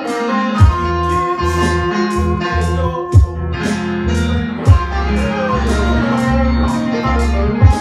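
Jam of electric guitar and keyboard over a beat with deep bass notes, regular hi-hats and a few heavy drum hits.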